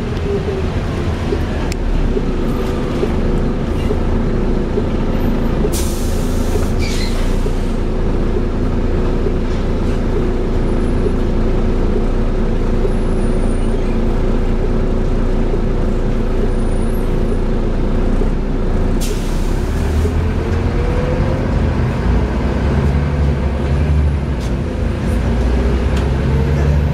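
Volvo B7TL double-decker bus engine running steadily, heard from on board, with two short hisses of compressed air about six seconds in and again near twenty seconds. After the second hiss the engine note rises and the low rumble grows.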